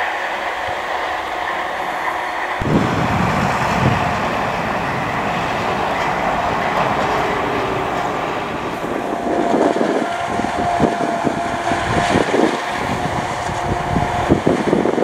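Claas Jaguar 980 self-propelled forage harvester at work chopping maize, a steady heavy machine noise with a high whine over it. A rough crackling joins in from about ten seconds in.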